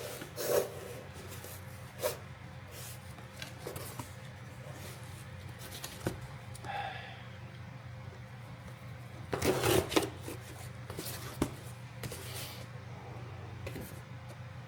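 Rustling and crinkling of a parcel's packaging as it is handled and opened by hand, in short scattered bursts, with a louder rustle about ten seconds in, over a steady low hum.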